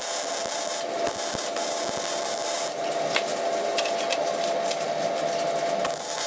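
Electric welding arc crackling and sizzling in spells as steel bolts are welded together, with scattered sharp pops.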